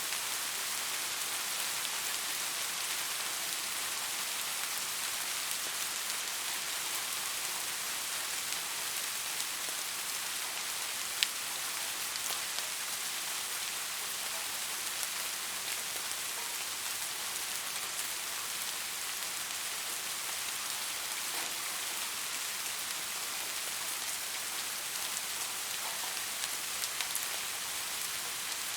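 Steady rain falling on a surface, an even hiss with scattered individual drop clicks, one sharper click about eleven seconds in.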